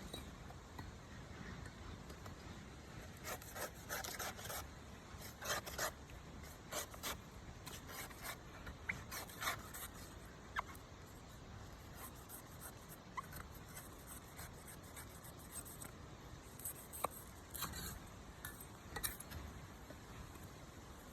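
A knife cutting and scraping at a coconut, in irregular bursts of short rasping strokes with a few sharp clicks.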